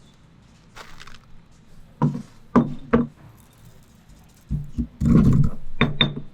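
Kitchen utensils and dishes being handled: a few separate sharp knocks and light clinks, then a denser rattling clatter about five seconds in.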